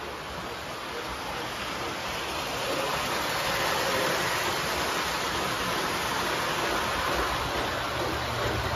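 O scale model trains running on the layout's track: a steady rolling rumble of wheels and motors, a little louder around four seconds in.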